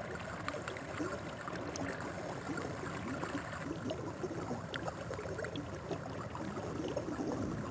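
Faint, steady running and lapping water of a hot-spring pool, with small scattered splashes.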